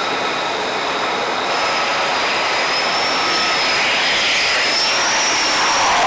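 Jet aircraft engines on a carrier flight deck: a steady rush with a thin high whine that climbs slightly, the rush swelling toward the end as a jet passes low over the deck.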